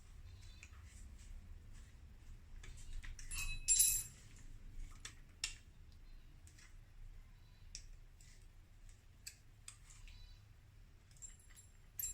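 Small metal parts and hand tools clinking and clicking as they are handled, in scattered irregular knocks, with one louder ringing metal clink about four seconds in.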